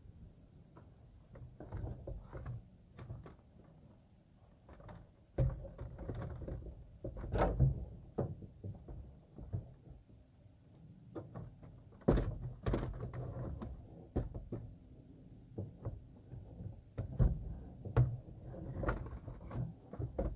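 Hummer H3 plastic fan shroud and cooling fan being worked down into the engine bay: irregular bumps, scrapes and knocks of plastic against the radiator and engine parts. The sharpest knocks come about five seconds in and again about twelve seconds in.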